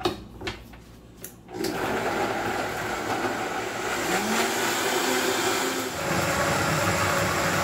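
Vitamix blender motor starting up about a second and a half in and running loudly, chopping bell peppers, onion and other vegetables with a cup of water. Its pitch climbs as the speed dial is turned up, with a further change near the end.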